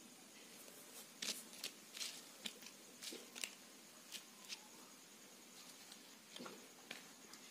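Faint rustles and light clicks of small spice-coated fish being picked up and laid in piles on sal leaves, coming in a quick string in the first half and a few more near the end.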